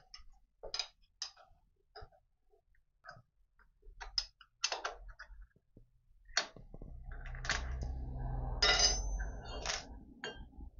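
Metal clinks and knocks as clamps, bolts and tools are handled on a milling machine's cast-iron table. A low steady hum sets in about six seconds in, under more frequent clinks.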